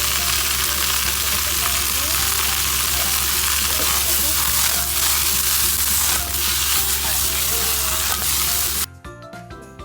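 Food sizzling in hot oil in a frying pan, a dense steady hiss over a low hum. About a second before the end the sizzling cuts off and soft background music takes over.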